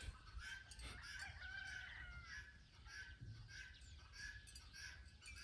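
Faint rooster crowing about a second and a half in, over the repeated short chirps of small birds.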